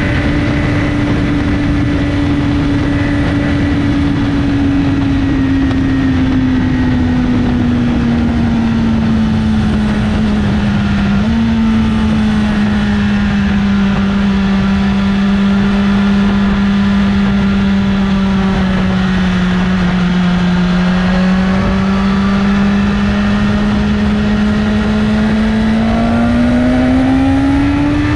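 BMW S1000RR's inline-four engine, fitted with an Akrapovic slip-on exhaust, running at steady cruising revs under wind noise. The engine note sinks gradually over the first third, holds steady, then climbs near the end as the bike accelerates.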